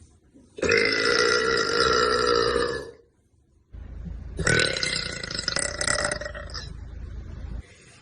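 Two long, loud burps from a young woman. The first starts about half a second in and lasts a little over two seconds. After a short pause the second starts near the middle and draws out for about three seconds.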